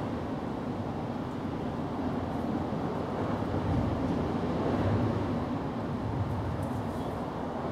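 Steady low outdoor rumble with no distinct events, swelling a little in the middle.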